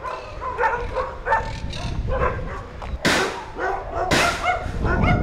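A dog barking repeatedly in short yips, with two louder rushes of noise about three and four seconds in.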